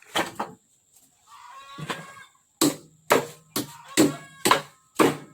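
Repeated hard striking, about two blows a second, each with a short ringing tone, typical of hammering on metal. Chickens cluck in between.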